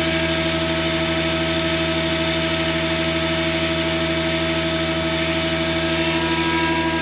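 Holzmann HOB 400V's open, grease-packed gearbox running steadily: a constant machine hum with several steady tones. The gearbox is the one with the fault.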